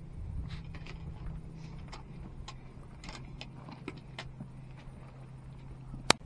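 Footsteps and scrapes of hiking shoes on limestone rock and loose scree during a steep scramble, irregular small clicks over a steady low hum. One sharp, loud click sounds near the end.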